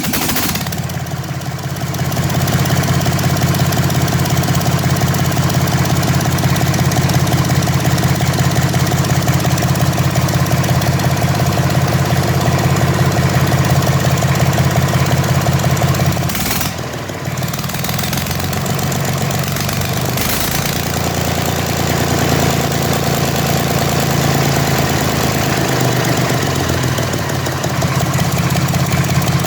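Deutz D4005 tractor's air-cooled diesel engine running steadily just after its first start since a rebuild, with a rapid, even pulse. The level dips briefly a little past halfway, then the engine settles back.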